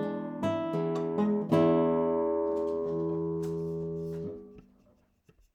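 Acoustic guitar closing a song: a few plucked notes, then a final chord strummed about a second and a half in and left to ring. The ringing is cut off about four seconds in and fades to near silence.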